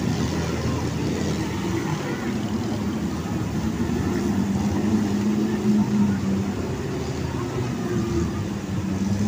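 Engines of several off-road jeeps running as they drive through a shallow rocky river, the engine note rising and falling.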